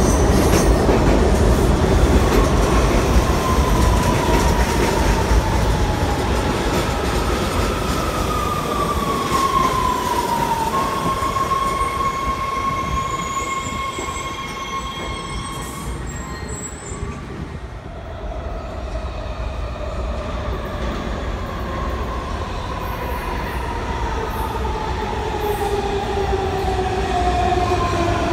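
Washington Metro Red Line subway trains pulling into underground stations: the rumble of the cars with a whine that falls in pitch as the train brakes, held steady for a few seconds before it dies away near the middle. A second train then comes in with another falling whine toward the end.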